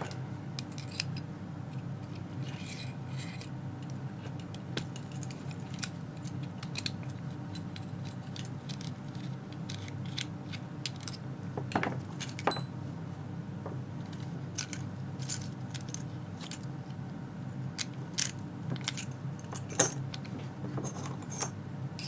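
Scattered light metallic clicks and clinks of a hex key and small steel padlock parts being handled as a screw is worked out of the padlock body, a few sharper clinks standing out, over a steady low hum.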